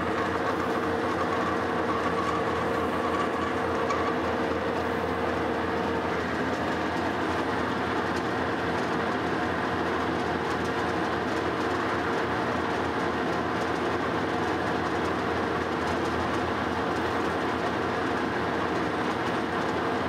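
Metal lathe running under power, turning a 1¼-inch hot-rolled steel bar while a center drill in the tailstock chuck bores a center hole in its end. Steady mechanical running at an even level, with a steady tone that stops about six seconds in.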